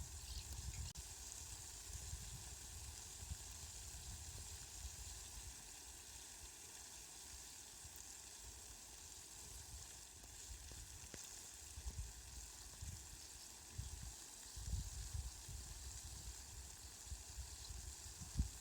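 Rain falling as a steady, faint hiss, with low rumbles swelling and fading now and then underneath.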